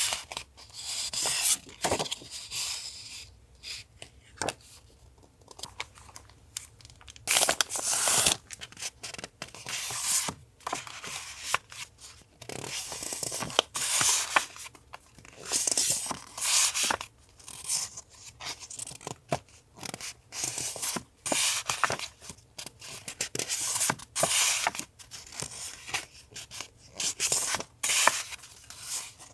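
Close-up paper handling: irregular rustling, crinkling and tearing sounds in short bursts with brief pauses between them.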